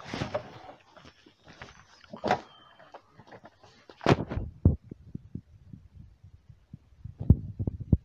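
Scattered dull knocks and thumps: a loud pair about four seconds in and a quick run of them near the end, over faint background noise at the start.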